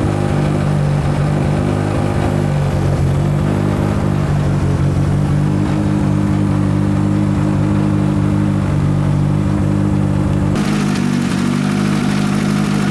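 Toyota Corolla WRC rally car's turbocharged four-cylinder engine running steadily at idle, loud and even. About ten seconds in, the low rumble drops and a brighter hiss comes up.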